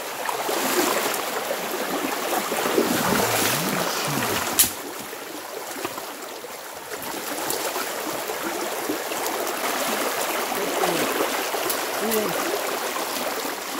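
Creek water running steadily, with low voices now and then and one sharp knock about four and a half seconds in.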